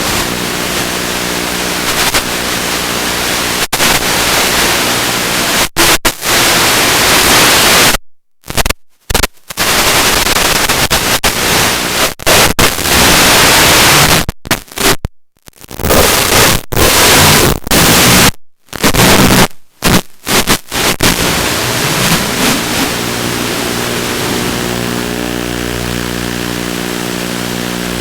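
Loud, steady static-like hiss from an FPV quadcopter's flight recording, with a low hum underneath. Between about 8 and 21 seconds in it cuts out to silence several times.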